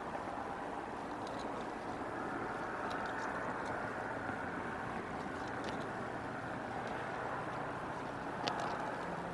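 Steady outdoor background noise at the nest-cam microphone, with a few faint clicks scattered through it and a slightly sharper one near the end.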